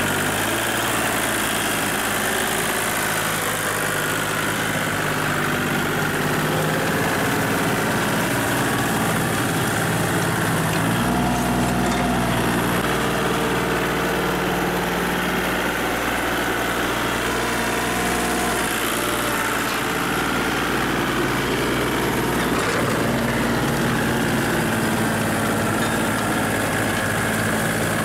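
Kubota compact tractor's diesel engine running steadily while pulling a rear rotary tiller through the field. The engine note shifts abruptly at a few points.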